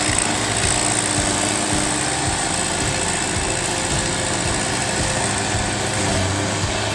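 Stump grinder running steadily under load, its engine and cutting wheel grinding an old tree stump into wood chips.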